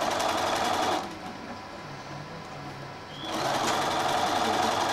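Electric sewing machine stitching a folded binding strip onto a quilt edge, in two short runs of even, rapid stitching: about a second at the start, then a pause, then about a second and a half near the end.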